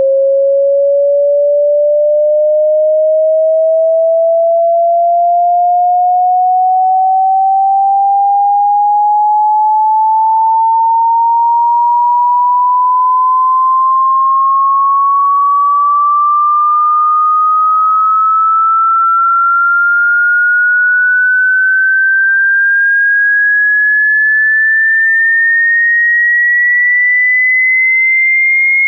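Pure sine-wave test tone sweeping slowly and steadily upward in pitch at an even, loud level: a hearing-test frequency sweep.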